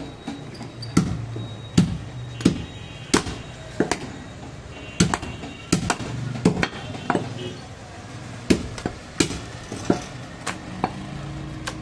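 A heavy butcher's knife chopping goat leg meat and bone down onto a wooden stump block: sharp, separate chops, about one to two a second, with a short pause about two-thirds of the way through.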